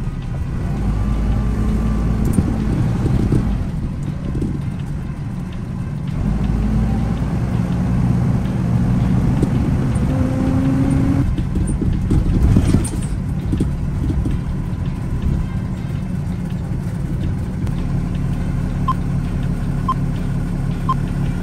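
Box truck driving, heard from inside the cab: steady low engine and road noise.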